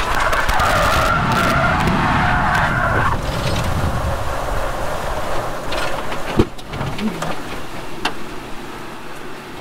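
Mazda MX5 skidding through a spin after its engine seized and locked the rear differential: a loud tyre skid for about three seconds, then a fading slide across the grass as the car slows, with a single sharp knock about six seconds in.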